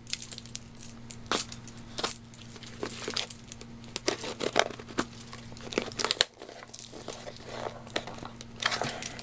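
Packaging being crinkled and torn open by hand, with irregular rustles and small clicks, over a steady low electrical hum.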